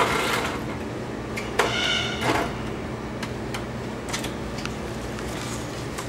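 Knocks and light metallic clanks of a metal step ladder being climbed, over a steady low hum. A brief squeak sounds about two seconds in.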